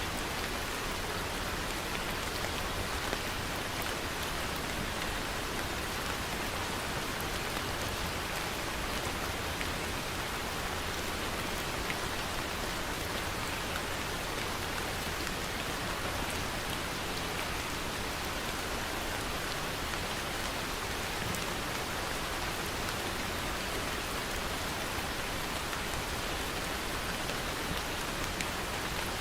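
Steady rain falling and pattering on a surface, an even hiss with scattered individual drop ticks.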